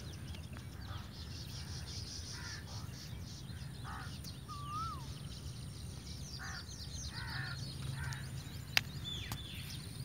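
Birds calling now and then outdoors: several short calls spaced a second or two apart, a brief whistled note near the middle, and a run of high chirps, over a steady low background rumble. A single sharp click comes near the end.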